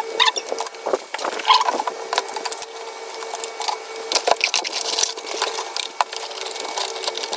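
Objects being handled and cleared off a desk: a busy run of light knocks, clicks and rattles at irregular spacing, with a faint steady hum underneath.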